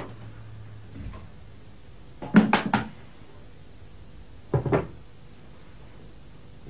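Household knocks and clatter: a soft thump about a second in, a short run of sharp clattering knocks around two seconds in (the loudest), and another brief clatter about four and a half seconds in. The knocks come from a door being shut and a wire kitchen basket being set down on a counter.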